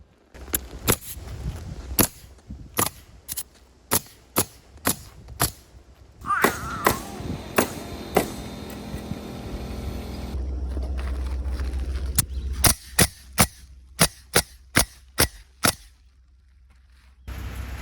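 Roofing nail gun driving nails through asphalt shingles: runs of sharp shots about two a second, with short pauses between runs.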